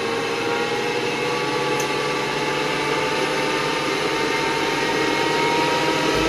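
Electric motor spinning the propeller and compressor fan of a homemade cardboard jet-engine model: a steady whine over a rush of air. The pitch slowly climbs and it grows a little louder as the motor speeds up.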